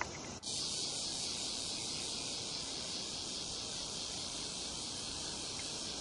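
Steady high-pitched insect chorus that comes in abruptly about half a second in and holds evenly.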